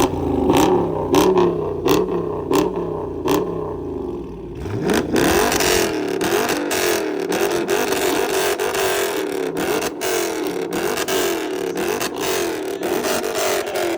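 A 5.7-litre V8 car engine revved hard in quick repeated blips, rising and falling about every two-thirds of a second. About five seconds in, the sound turns harsher and fuller as the revving goes on.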